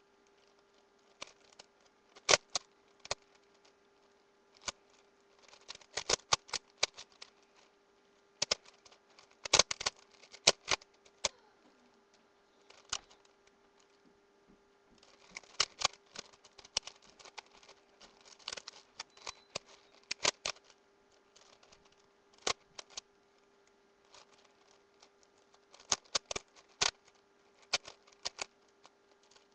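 Plastic puzzle cube being turned quickly by hand: runs of sharp clicking layer turns, broken by short pauses between move sequences.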